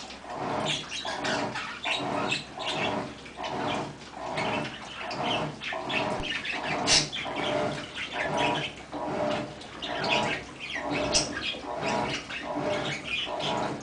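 Mabe 15 kg washing machine agitating a load during the wash cycle: water and clothes slosh in an even back-and-forth rhythm, about one and a half strokes a second, with the motor's hum in each stroke.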